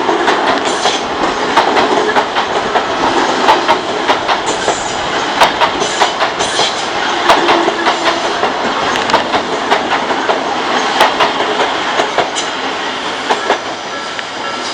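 Odakyu Odawara Line electric train passing close by at a level crossing, a continuous loud rumble of running gear with the wheels clacking sharply and irregularly over rail joints, easing slightly near the end.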